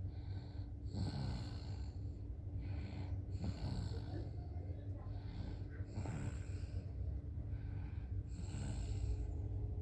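Toddler snoring in deep sleep, a rough snore on each breath about every two and a half seconds, four in all. The uploader puts it down to tiredness after a day of play.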